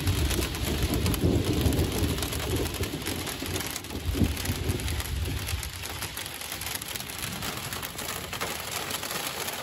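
Rain pattering on the forest foliage and ground, many fine drops. A low rumble of thunder fades out over roughly the first half.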